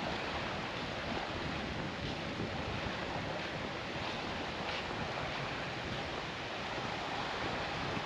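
Steady wash of surf on a beach, with wind buffeting the microphone.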